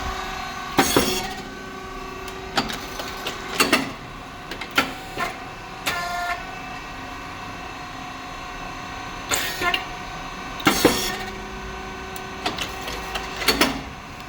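Rice cake popping machine running through its cycle: a steady motor and hydraulic pump hum, broken by sharp metallic clacks and pops from the moulds and feeding plate. The two loudest bangs come about ten seconds apart.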